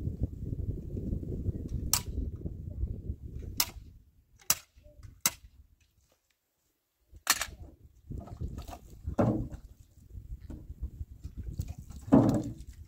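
Sharp clicks of a flat metal blade striking stone, five in all, over the scraping rustle of gravel. There is a short dead silence about six seconds in, then more gravel rustling and two louder knocks near the end.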